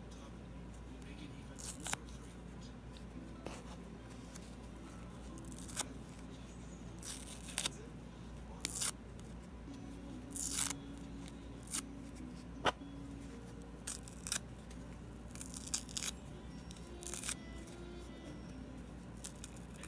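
Foam kitchen sponges being ripped apart by hand: irregular short tearing crackles, around fifteen, some drawn out for about half a second.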